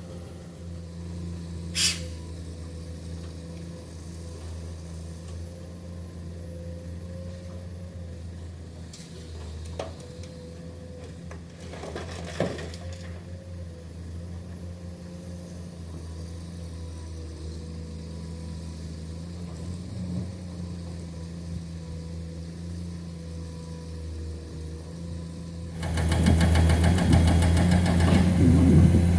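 Heavy diesel earthmoving engine running steadily, broken by a few short sharp knocks. Near the end the engine gets much louder and stays loud.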